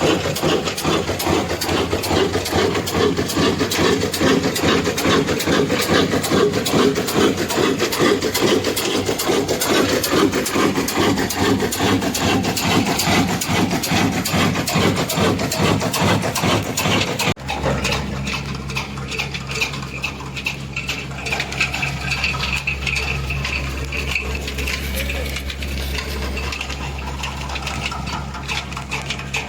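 Old single-cylinder black diesel engine running steadily with a rapid chugging rhythm while driving an atta chakki flour mill. About two-thirds of the way through, the sound changes abruptly to a deeper, steadier hum.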